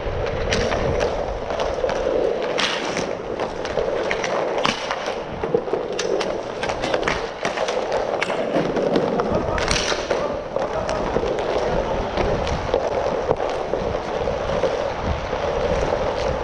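Inline hockey skate wheels rolling over plastic sport-court tiles, a steady rolling noise, with frequent sharp clacks of sticks and puck; one hit about ten seconds in is louder than the rest.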